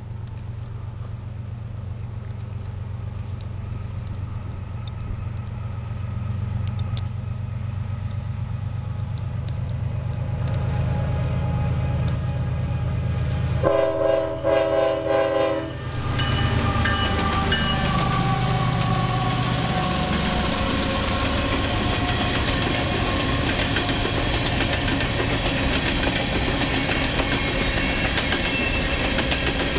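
Union Pacific diesel freight locomotives approach, their engine drone growing louder. About halfway through the lead unit sounds its air horn in a few quick blasts lasting about two seconds. It then passes with the engine note falling, followed by the steady rush and clickety-clack of hopper cars rolling by.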